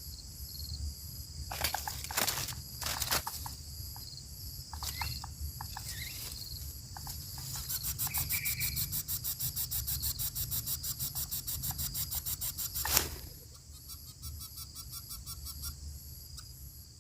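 Insects chirping steadily in grassland, with scattered rustles and clicks. About halfway through, a loud rapid pulsing buzz runs for several seconds and ends in a single sharp knock.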